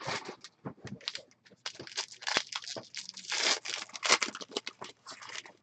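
Trading card pack wrapper being torn open and crinkled by hand, an irregular run of crackles and rustles, with cards sliding out.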